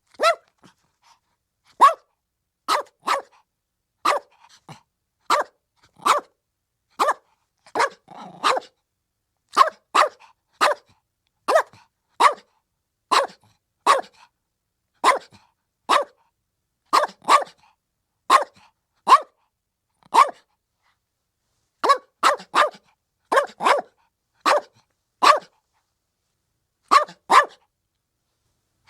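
Female chihuahua puppy, about 75 days old, barking: a long run of short, sharp, high yappy barks, often in quick pairs, about one to two a second, with a couple of brief pauses.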